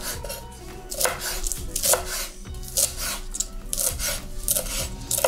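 Chef's knife chopping spinach leaves into thin strips on a bamboo cutting board, the blade tapping the board at a steady pace of about three cuts a second.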